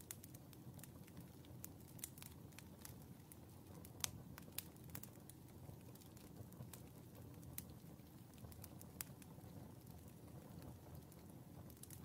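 Glowing wood embers burning down in a stove's open firebox, crackling faintly with scattered sharp pops and ticks. The loudest pop comes about four seconds in, over a low steady rumble.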